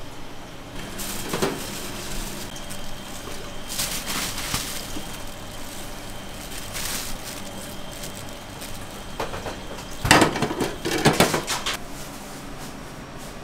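Kitchen clatter: utensils, pans and containers being handled in a few separate bursts, the loudest a run of clattering about ten seconds in.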